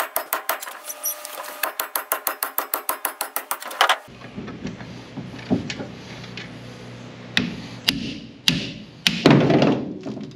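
A big hammer striking steel in fast, even blows, about five a second, each with a metallic ring, knocking at a driveshaft slip yoke jammed in the tail shaft of a 4L70E transmission. The rapid hammering stops about four seconds in, followed by scattered single metal clanks and a heavier thunk near the end.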